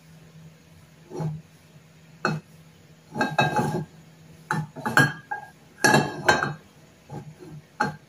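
A frying pan being shifted and rocked on a gas burner's metal grate: a string of metallic clanks and scrapes, some ringing briefly, in irregular clusters, loudest in the middle.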